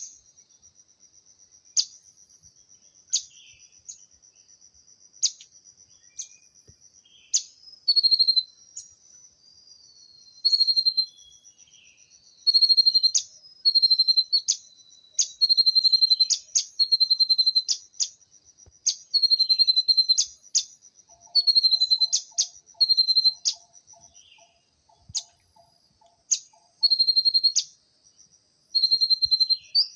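Songbird calling over and over in short, high, steady-pitched notes, each starting with a sharp click, coming in runs of one or two notes a second. A thin, continuous high buzzing runs behind the calls.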